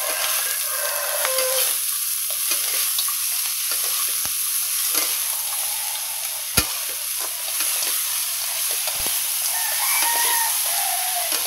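Fried tofu, oyster mushrooms and garlic chives sizzling in oil in a wok, stirred and tossed with a metal spatula that scrapes along the pan. There is one sharp knock about halfway through.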